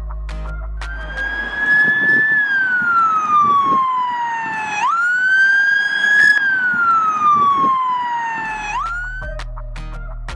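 A wailing siren: twice its pitch jumps up quickly and then glides slowly down over about four seconds, with a rushing noise underneath. Music plays briefly at the start and end.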